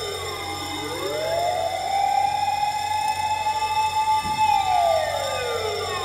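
Emergency vehicle sirens wailing. One siren rises slowly to a long held high note, then falls about four and a half seconds in, while a second, fainter siren sweeps up and down alongside it. A low engine hum runs beneath.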